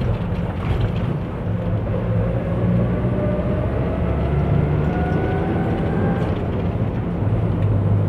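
Engine and road rumble heard from inside a moving vehicle, steady throughout, with a faint whine that rises slowly in pitch between about two and six seconds in.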